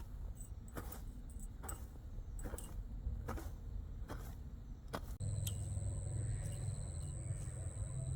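Regular knocks or strikes, a little more than one a second, then about five seconds in an abrupt switch to a steady low motor hum with a high whine over it.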